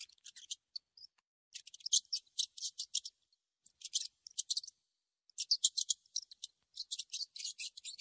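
Rat squeaking: quick runs of short, high-pitched squeaks in several bursts, with brief pauses between them.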